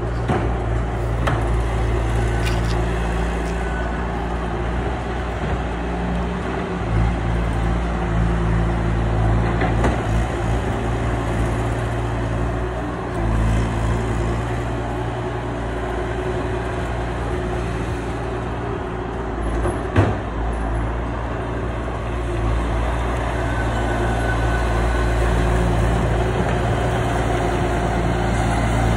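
A large engine running steadily, its speed shifting now and then, with a sharp clank about twenty seconds in.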